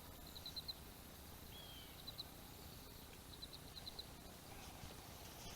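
Faint bird chirps: short high notes in quick groups of two to four, repeating about every second, with one short sliding call, over a quiet outdoor background.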